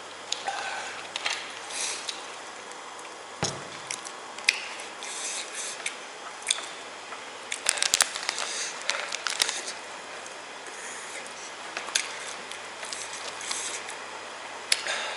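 Irregular rustling, crinkling and clicking from objects being handled close by, with a low thump about three and a half seconds in and a busier run of clicks about halfway through.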